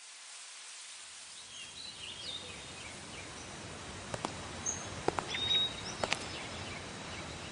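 Outdoor ambience fading in, with birds chirping now and then and three sharp clicks in the second half.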